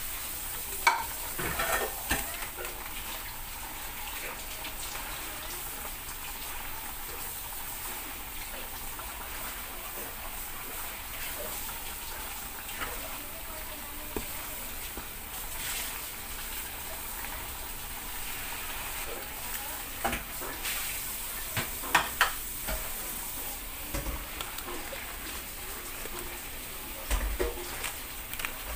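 Shin Ramyun noodles simmering in broth in an aluminium pot, a steady hiss and bubble. A metal ladle stirs and knocks against the pot now and then, loudest about a second in and again twice around twenty-two seconds in.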